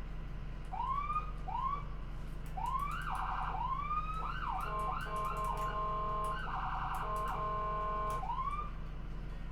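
Ambulance electronic siren: short rising whoops, then fast warbling and a steady held tone, over a constant low hum.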